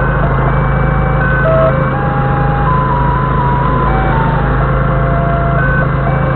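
Doosan 4.5-ton forklift engine idling steadily, with a simple electronic melody of single held notes playing over it.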